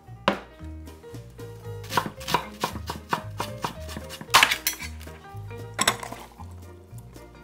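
Chef's knife chopping vegetables on an end-grain wooden cutting board, in several quick runs of chops.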